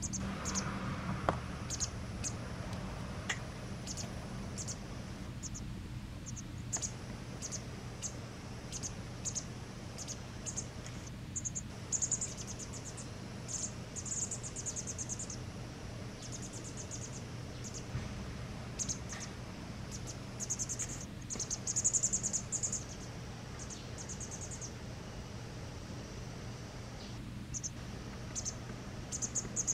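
White wagtail fledglings giving high, rapid begging chirps in short irregular bursts while being fed, over a steady low hum.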